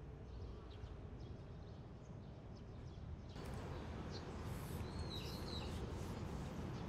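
Quiet outdoor background noise with a steady low rumble; about halfway through it rises a little and a bird chirps a few short warbling calls.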